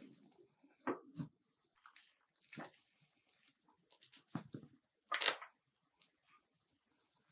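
A few separate knocks and scrapes of kitchen utensils against cookware, with a short hiss in between and the loudest knock about five seconds in.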